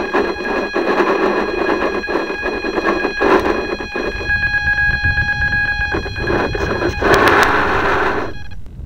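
A model boat's small electric motor running close to the microphone with a steady whine over hiss, cutting off abruptly about a second before the end.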